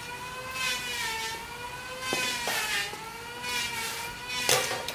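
A steady droning tone that wavers slowly up and down in pitch, with a couple of light knocks and one sharp clank about four and a half seconds in.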